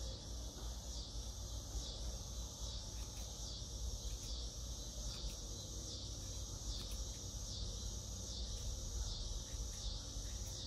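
Insects chirping in a steady chorus, a high sound that pulses evenly somewhat under two times a second. A few faint clicks sound now and then.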